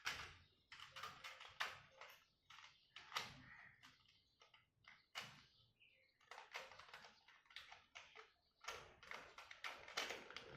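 Faint, irregular clicks, taps and knocks of a small plastic toy car being handled and knocked about, a few a second.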